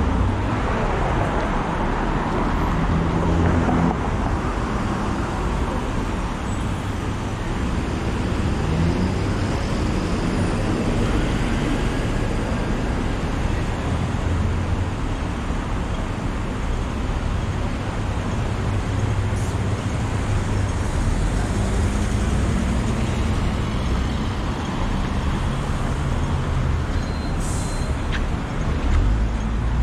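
City street traffic: car and bus engines running and passing on the road, with tyre noise, swelling and fading as vehicles go by. A short high hiss comes near the end.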